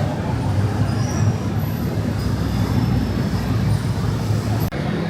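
Busy city street ambience: a loud, steady rumble of traffic noise, which breaks off abruptly about four and a half seconds in and carries on much the same.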